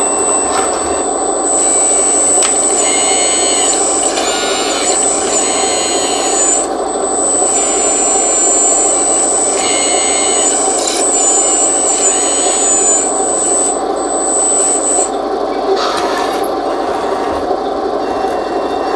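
1:14-scale RC hydraulic skid steer loader (Double E E116) running: a steady whir from its electric hydraulic pump and drive, with a high thin whine that dips in pitch now and then. Twice, for a few seconds each, a harsher, higher whirring rises over it as the hydraulics or drive are worked.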